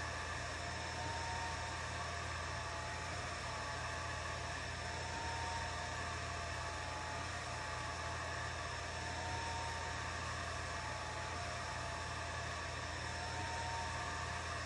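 Atomstack A10 Pro diode laser engraver running while it engraves a ceramic tile: a steady fan whir and hiss over a low hum, with a higher-pitched whine that swells about every four seconds.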